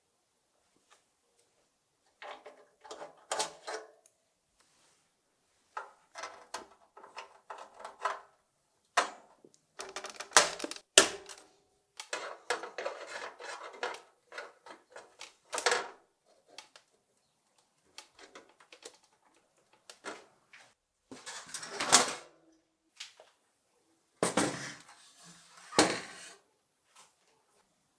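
Intermittent clattering and knocking of the hard parts of a tabletop mini soccer game being handled, in bursts of a second or two with quiet gaps between.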